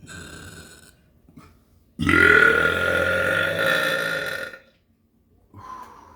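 A person belching: one long, loud burp that starts suddenly about two seconds in and lasts about two and a half seconds, rising a little in pitch at its onset. Fainter short sounds come near the start and near the end.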